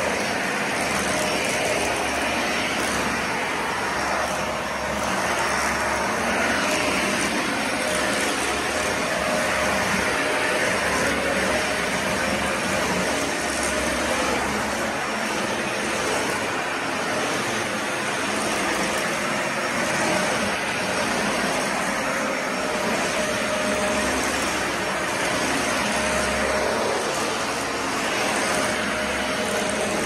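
Dyson Ball Animal 2 upright vacuum cleaner running steadily while pushed across a wood floor: a constant rushing noise with a faint steady tone, swelling slightly as it moves back and forth.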